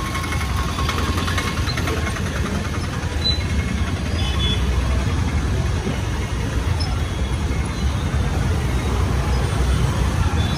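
Riding a motorcycle through busy city street traffic: the bike's engine running under a steady low rumble of road and wind noise, with other two-wheelers' engines close by.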